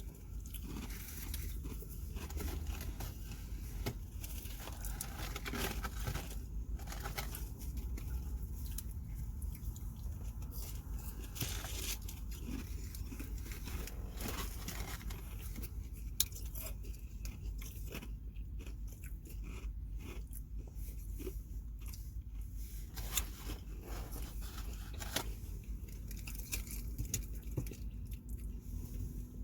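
A person chewing and crunching on fried tater tots, with many short crunches and smacks throughout over a steady low hum.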